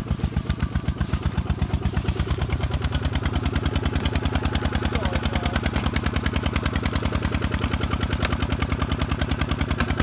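Single-cylinder diesel engine of a two-wheel walking tractor running steadily under load, with an even thudding beat of about nine pulses a second, as it hauls a loaded cassava trailer through soft mud.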